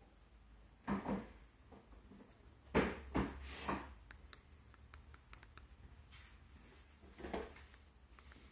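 Handling noise from a hand moving a small plastic receiver and its cable: two brief knocks about a second in, three more around three seconds in, and one near the end, over a faint low hum.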